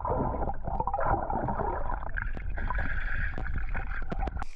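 An orange pumpkin plunging into a swimming pool, heard from under the water: muffled gurgling and churning of water and bubbles as it bobs up to float. The sound cuts off suddenly near the end.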